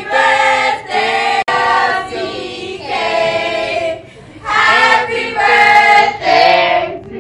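Several voices singing together in phrases of held notes, with short breaks between phrases and a momentary dropout about a second and a half in.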